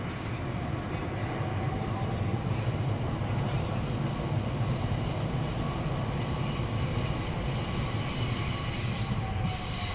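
Steady low engine drone with a faint high whine, swelling slightly in the middle.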